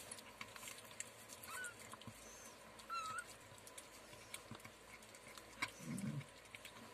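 Faint, high-pitched mews from newborn kittens: a few short squeaks in the first half, over soft scattered clicks of a mother cat chewing and lapping wet food from a steel bowl. A brief low sound comes about six seconds in.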